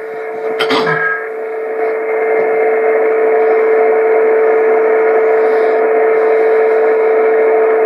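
Kenwood TS-140 HF receiver on the 10-meter band between transmissions: band-limited static hiss with a steady low whistle, the beat note of an unmodulated carrier on frequency, and a short click about a second in.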